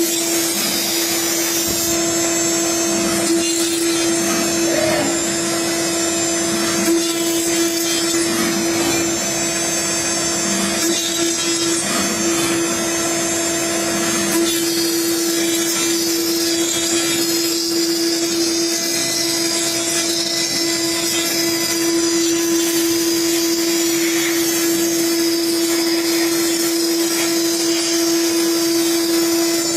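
CNC router spindle running with a steady whine over a constant hiss as its bit cuts acrylic.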